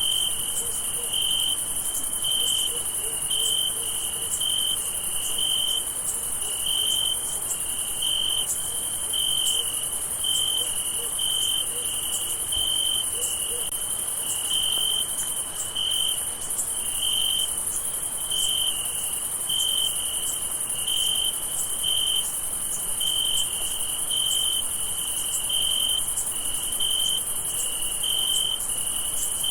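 Crickets at night: a steady high-pitched trill with a lower chirp repeating evenly, about three chirps every two seconds.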